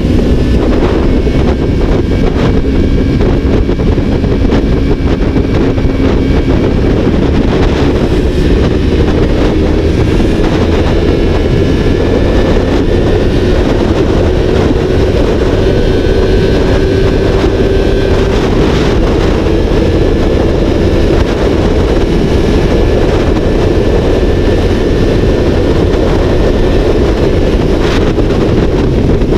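Yamaha MT-03's parallel-twin engine through a freshly fitted Yoshimura R11 slip-on exhaust, cruising at a steady speed, its note slowly rising over the first half then easing slightly. Heavy wind rush on the microphone mixes with it.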